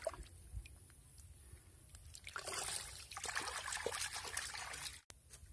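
Muddy water trickling and sloshing in a flooded mud hole, starting about two seconds in and cutting off suddenly near the end.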